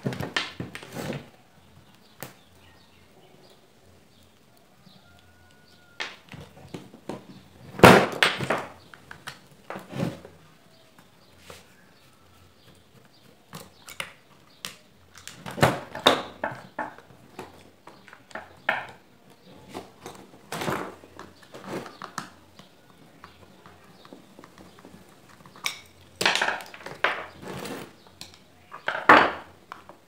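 Irregular knocks, clicks and clinks of metal fan-motor parts and hand tools being handled on a workbench as an electric fan motor is taken apart. There are quiet stretches between them and louder clusters of knocks about eight seconds in, around sixteen seconds, and near the end.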